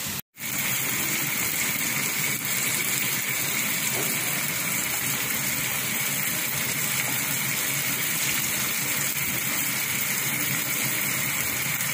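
Steady hissing sizzle of chicken and green beans frying in a pan on a gas stove.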